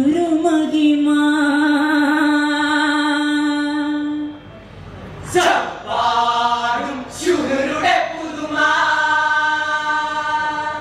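A group of male voices singing a vattappattu song together, unaccompanied, holding long wavering notes. They break off briefly about four seconds in, then take up the song again.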